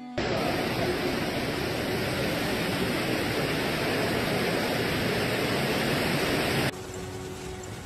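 Heavy rain and strong storm wind, a loud, steady rushing noise. About six and a half seconds in it cuts off abruptly to a quieter hiss.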